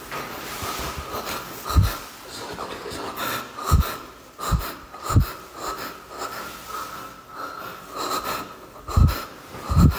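A person's breathing close to the phone microphone, heavy and audible throughout, with several short low thumps, the loudest of them about two seconds in and near the end.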